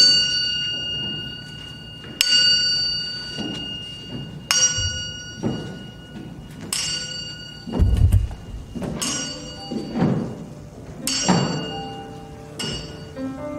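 Percussion music: a bell-like metal instrument struck about every two seconds, each strike ringing on, with low drum thuds falling between the strikes.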